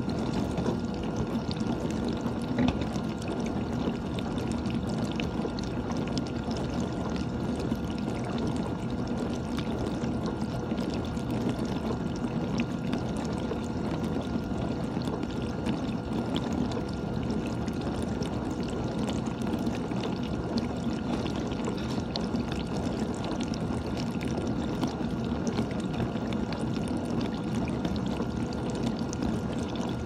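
GE dishwasher running mid-cycle: water spraying and splashing in the tub over a steady pump hum, with scattered light ticks of droplets.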